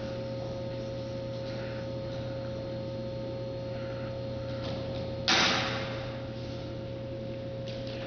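Steady electrical mains hum throughout, with one sudden loud crash about five seconds in that rings out over roughly a second in the hall.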